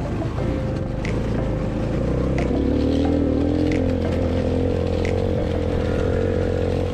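Small engine of an off-road go-kart running under way on a dirt trail, its note shifting a little with the throttle.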